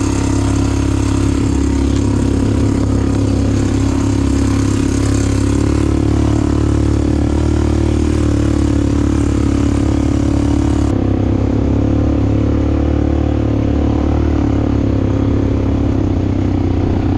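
ATV engine running steadily while under way. Its note shifts slightly about a third of the way through, and it turns duller about two-thirds of the way in.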